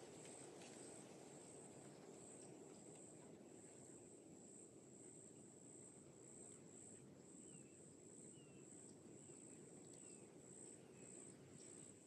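Faint outdoor ambience: an insect chirping steadily in a high-pitched pulsing trill, about two pulses a second, with a few faint short bird chirps in the middle.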